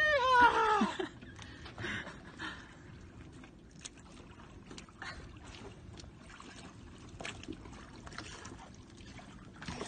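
A drawn-out whooping shout that rises and falls in the first second, then faint water lapping around a small boat with scattered light knocks.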